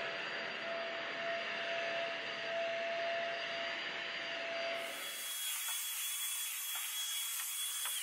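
Vacuum cleaner running steadily as it is pushed over carpet, a steady rushing noise with a faint whine. About five seconds in, the sound turns thinner and higher-pitched.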